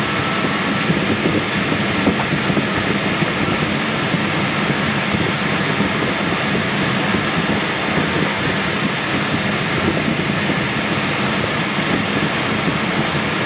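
Steady rush of air over a Schempp-Hirth Duo Discus glider in flight, heard from inside the closed cockpit.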